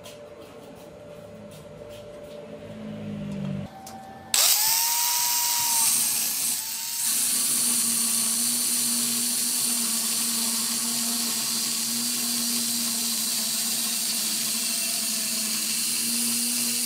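Angle grinder switched on about four seconds in, its motor whining up to speed, then its thin cut-off disc cutting through a flat steel bar held in a vise with a steady, loud grinding hiss.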